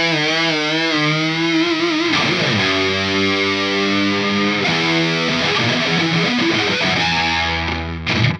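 Distorted electric guitar played through a Line 6 Helix patch with two opposed pitch shifters on delays: wavering, bent notes, then held chords, stopping suddenly at the end.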